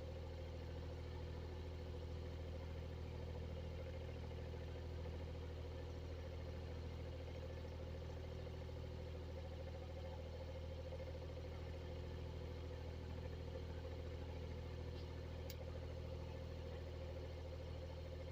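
Exhaust fan running steadily: a low motor hum with a steady mid-pitched tone over it, and one faint tick about three-quarters of the way through.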